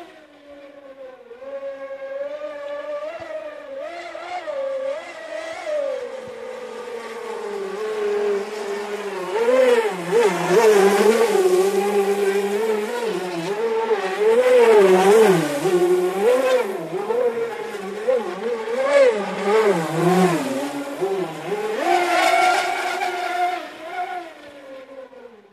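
Norbert Kulmus HPR 135 radio-controlled racing boat running at speed, its motor note rising and falling with the throttle as it turns. It is loudest around the middle, as the boat passes close.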